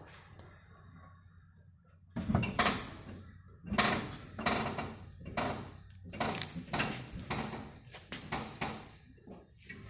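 A run of irregular clunks and knocks, starting about two seconds in and lasting about seven seconds, with up to two or three knocks a second.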